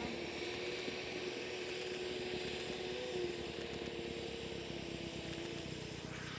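Diesel engine of heavy snow-clearing equipment running steadily, with a steady tone over the engine noise.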